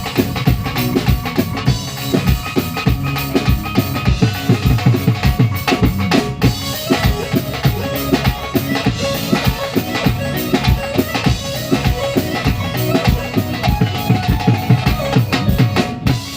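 Recorded dance-pop song played loud, with a steady drum beat and a heavy bass drum.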